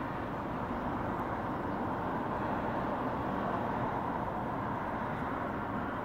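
Steady rush of road traffic that swells slightly around the middle and eases off near the end.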